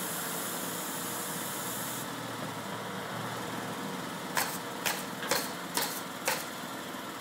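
Crane truck's engine running steadily, with a hiss that stops about two seconds in. From about four seconds in, sharp knocks come about twice a second as a roof truss is nailed in place.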